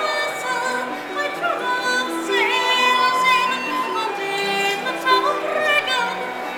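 Live Celtic-style folk music: a tin whistle plays an ornamented melody with quick turns between held notes, over harp accompaniment.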